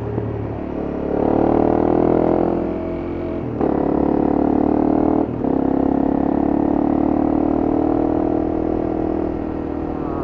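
Honda CRF250M's single-cylinder four-stroke engine pulling under way, its note climbing with the revs and dropping at two brief breaks where gears are changed, then holding steady. The engine is freshly oil-changed and running well.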